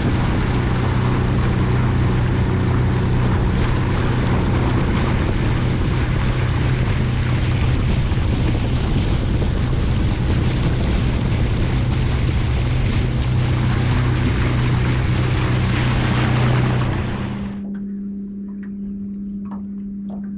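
Fishing boat under way: its motor running at a steady speed, with wind and rushing water. It cuts off suddenly about three quarters of the way in, leaving a quieter steady hum.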